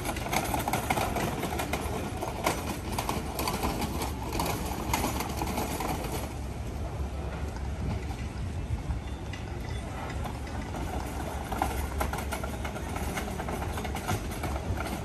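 Busy street ambience: a steady low engine rumble of traffic, with quick knocking steps and clatter for the first six seconds or so, then thinning out, under faint distant voices.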